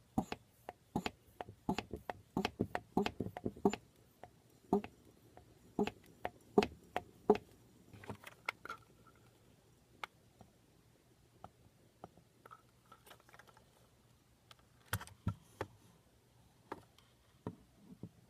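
Hand-squeezed vacuum pump clicking with each stroke as it draws air out of a mason jar: a quick run of clicks, about four a second, for the first few seconds, then sparser single clicks.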